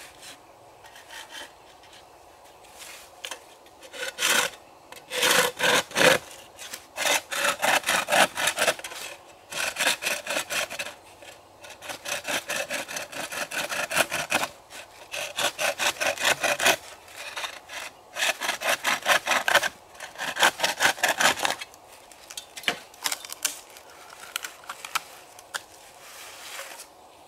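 A hand saw cutting through a bamboo pole in quick back-and-forth strokes. The strokes come in several runs with short pauses between them and grow fainter near the end.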